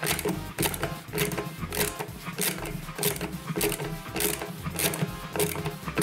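Socket ratchet clicking in repeated strokes as it tightens the pulley bolt, drawing the washing machine drum's shaft into its new bearings.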